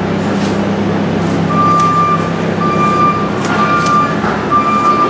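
A vehicle reversing alarm beeping about once a second, starting about a second and a half in, over a steady low hum.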